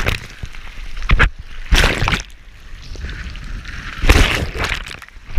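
Ocean waves breaking and whitewater washing over a waterproof action camera at the water's surface, heard as loud surges of splashing and sloshing. The surges come right at the start and again about one, two and four seconds in.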